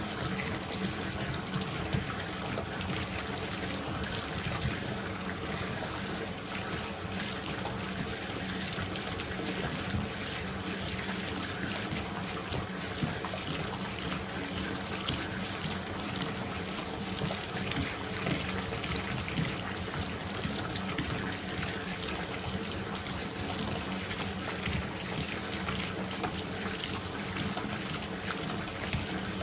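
Bathtub tap running steadily, its water pouring through a mesh strainer and splashing into a filling, foamy bath.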